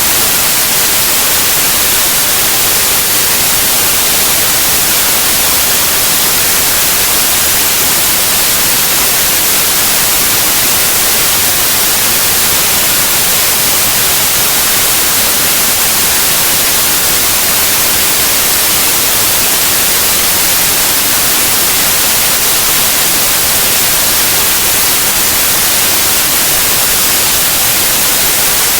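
Steady, loud white noise: an even hiss across the whole range, unchanging throughout.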